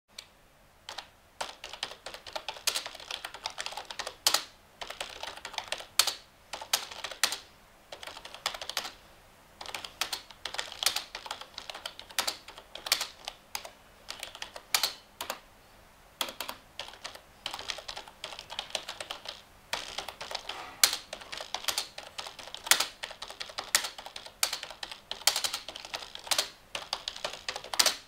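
Typing on a computer keyboard: quick, irregular key clicks with now and then a louder stroke, stopping briefly a couple of times.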